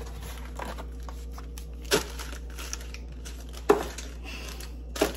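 Plastic-wrapped snack packets crinkling as they are stuffed onto a wooden kitchen cabinet shelf, with three sharp knocks of items or the cabinet, the loudest about halfway.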